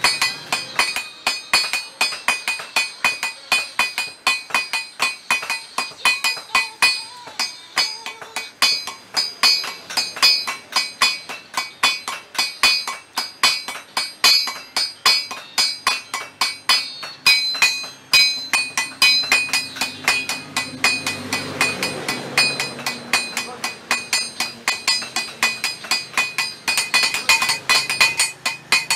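Hand hammers striking a red-hot bolo blade on a steel anvil, a fast, steady run of blows at about three a second, each with a bright metallic ring.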